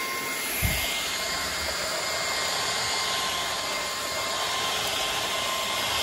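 Kyvol V20 cordless stick vacuum's brushless motor running steadily, a rush of air with a high whine, as it sucks up wood shavings from a hardwood floor. A low thump about two-thirds of a second in.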